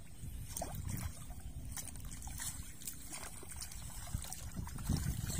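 Shallow muddy water sloshing and dribbling as hands work in it, with scattered small splashes, over a steady low rumble.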